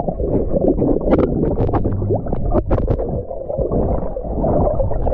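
Muffled rumbling and sloshing of water picked up by a camera held underwater in a swimming pool, with a few sharp clicks around the middle.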